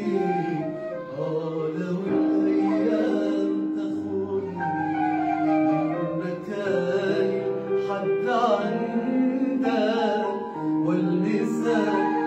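Male singer singing solo at a microphone, with ornamented runs that bend and waver in pitch, over steady held notes of accompaniment.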